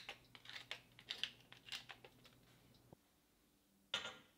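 Faint crackling clicks of a pepper mill grinding whole black peppercorns, for about two seconds. Near the end, a short scrape as a plate is set down on a slatted wooden table.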